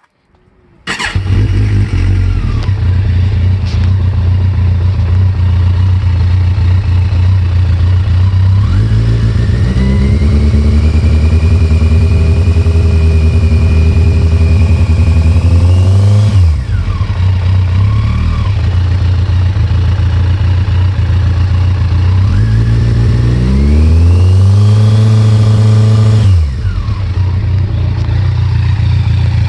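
Kawasaki ZX-14's inline-four motorcycle engine starts about a second in, idles, then is revved up and held twice before dropping back to idle. The engine has a knock that the owner puts down most likely to a spun bearing on the number 3 cylinder, possibly the cam chain tensioner.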